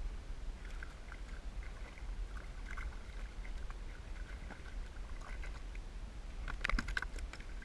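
Wind rumbling on the microphone and water lapping against a sea kayak while a small hooked fish is reeled to the side. Near the end comes a quick flurry of sharp taps and knocks as the fish is lifted aboard and flaps against the kayak.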